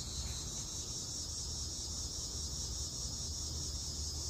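Steady chorus of crickets trilling in one high, even band, with a faint low rumble underneath.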